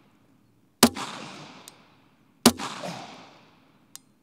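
Two pistol shots from a Glock built into a bong, about a second and a half apart, each followed by a long echo fading away. A faint light tick follows each shot.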